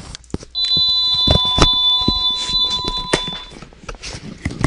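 House phone ringing: one long electronic ring starts about half a second in and stops about three seconds later, signalling an incoming call.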